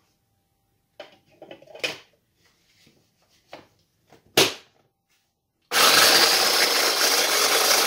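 Small electric mini food chopper grinding graham crackers into crumbs, starting about six seconds in and running steadily and loudly. Before it, light clicks of cracker pieces dropped into the bowl and one sharp clack as the lid is fitted.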